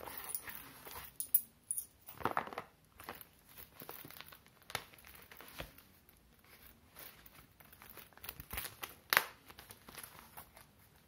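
Horse-leather trucker wallet being handled: rustling of the leather as it is opened, a card is taken out and it is folded shut, with scattered small clicks and one sharp click about nine seconds in.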